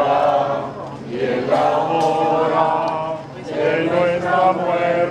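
Voices singing a slow Spanish hymn to the Virgin, in long held notes with short breaks between phrases.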